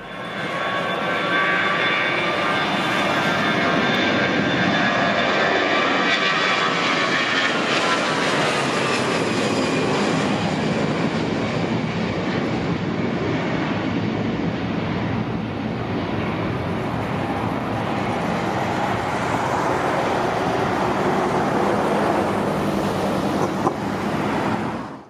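Airbus A320-214 jet airliner's two CFM56 turbofan engines at takeoff power, a loud steady jet noise with a high whine that drops in pitch as the aircraft passes, about seven seconds in.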